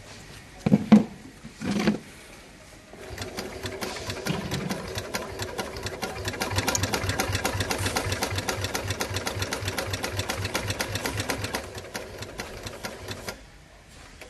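Heavy-duty industrial flatbed sewing machine stitching thick webbing, running with an even stitch-by-stitch rhythm for about ten seconds and then stopping. Two thumps come just before it starts.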